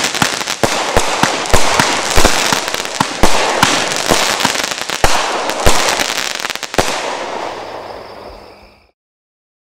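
Brothers 'Blonde Joke' 36-shot 500-gram fireworks cake firing its finale: sharp shot and burst reports about two a second over a continuous crackle. It thins out and fades near the end, then stops abruptly.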